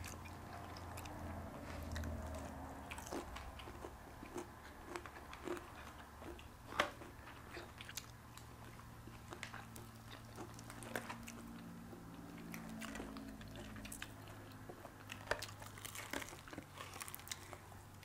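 People chewing and biting into crispy fried chicken, with scattered small crunches and clicks, one sharper click about seven seconds in. A faint low hum runs underneath.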